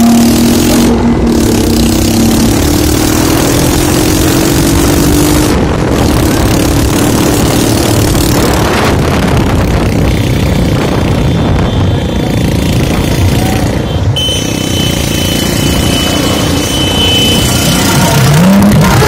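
Engine and road noise heard from a moving vehicle, with motorcycle traffic alongside. The noise is loud and steady.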